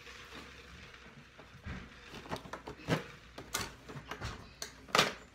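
Hands opening a microphone's retail box: a series of clicks and knocks from the packaging, the loudest about three seconds in and another just before the end.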